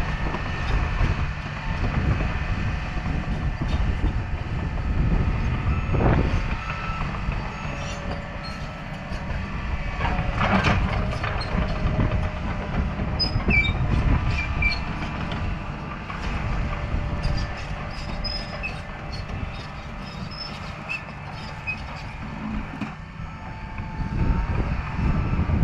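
Bulldozer working: its diesel engine runs steadily under load while the steel tracks clatter and squeak, with a couple of louder clanks along the way.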